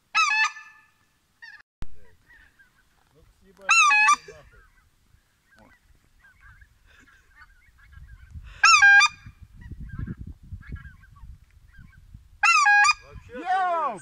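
Loud goose honks blown on a hand-held goose call, five calls a few seconds apart with the last two close together. Fainter honking of the geese flying overhead can be heard between them.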